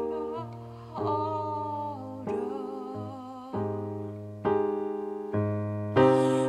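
Music: a keyboard playing held chords, moving to a new chord about once a second.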